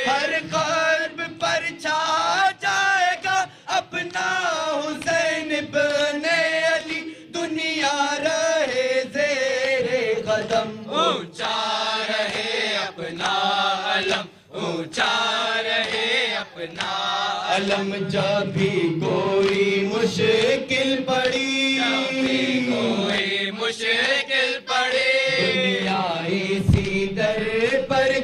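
A group of young male voices chanting a noha, an Urdu lament, without instruments, following a lead reciter at a microphone. The chant is continuous.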